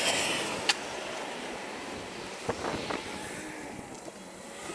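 Steady outdoor rumble of wind and distant traffic, with a sharp click about a second in and a few soft knocks around the middle.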